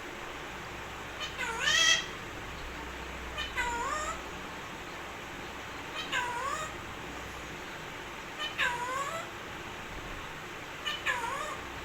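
Pet parrot giving five calls about every two and a half seconds, each a short click followed by a tone that slides down and then back up in pitch.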